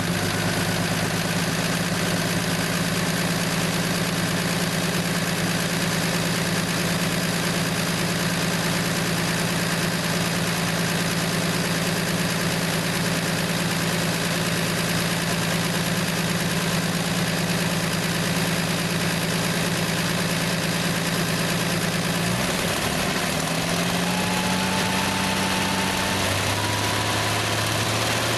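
Plymouth Valiant slant-six engine idling steadily; about 22 seconds in its note shifts and settles lower.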